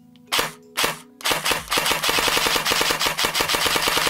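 Grand Power R15 Freya airsoft AEG gearbox dry-firing: two single shots, then a sustained run of rapid fire at about a dozen shots a second, with the motor's whine underneath.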